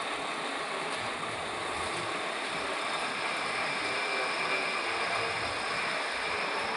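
Metal lathe running steadily while turning a shaft, an even mechanical noise that holds at one level without distinct knocks or pitch changes.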